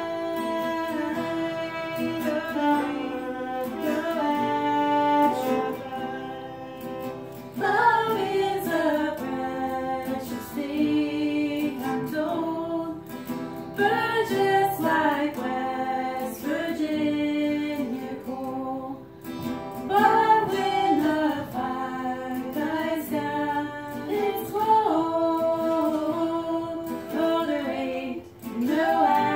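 A woman singing a song to a strummed acoustic guitar, with a fiddle bowing at first.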